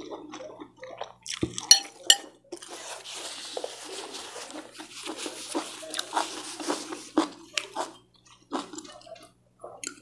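Close-miked eating of wet fried noodles: slurping, chewing and wet mouth clicks, with a longer hiss through the middle.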